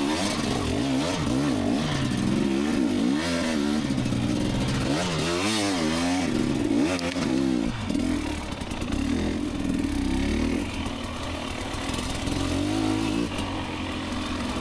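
Two-stroke dirt bike engine revving up and down over and over as the throttle is worked on and off at low speed.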